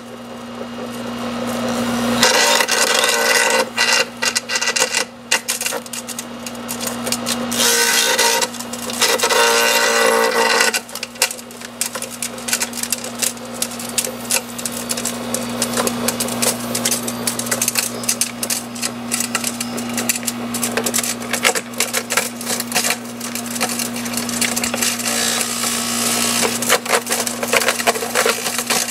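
Electric branch shredder (KAWASHIMA GS2500) running with a steady motor hum while branches are fed in and crunched to chips. The crackling and splintering is irregular, with heavier stretches twice in the first half.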